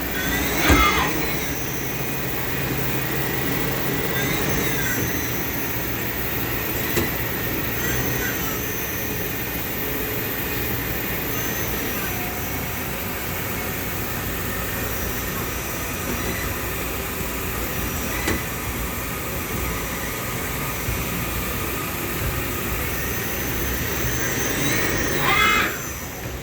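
Steady drone of running industrial machinery, with a brief squeal just after the start and another near the end.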